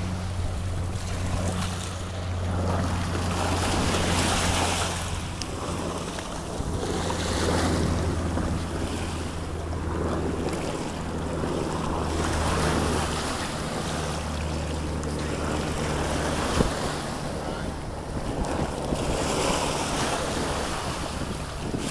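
Small waves washing up and draining back on a sandy, shelly beach in slow surges, with wind buffeting the microphone. A low steady hum sits underneath and stops about three-quarters of the way through.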